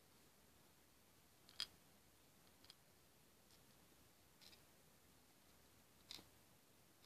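A few faint, sharp clicks of small plastic hama beads being handled and set onto a plastic pegboard, the loudest about a second and a half in, over near silence.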